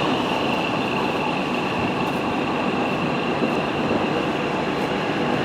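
Komatsu WB93 backhoe loader's diesel engine running steadily just after starting, with a steady high-pitched whine over the engine noise.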